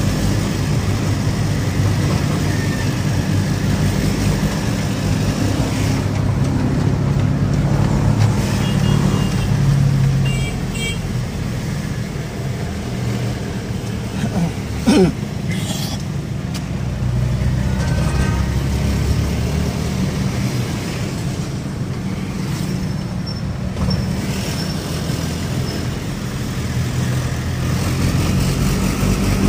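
A vehicle's engine running and tyre and road noise heard from inside the cabin while driving, a steady low rumble. A brief loud sound with a bending pitch comes about halfway through.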